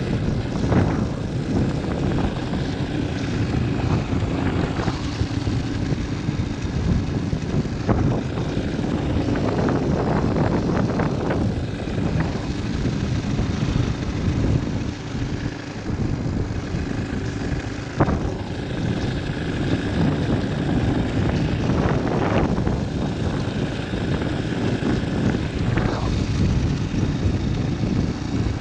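Motorcycle engine running steadily while riding, with wind noise on the microphone.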